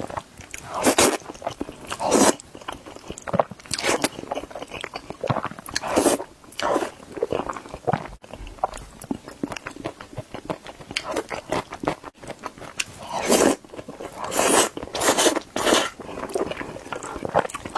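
Close-miked eating of hot dry noodles in thick sesame paste: wet, sticky chewing and mouth sounds in irregular bursts, about one to three a second.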